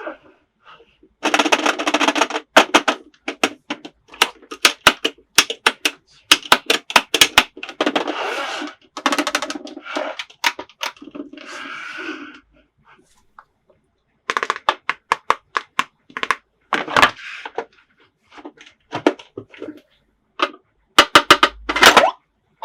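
Hard plastic toy pieces clicking and knocking together as they are handled, in irregular runs of quick clicks with a few bursts of rustling.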